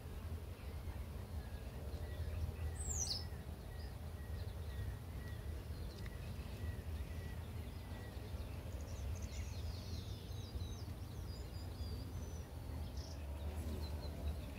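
Birds chirping over a steady low rumble of outdoor noise: one quick falling chirp about three seconds in, then a run of short high chirps later on.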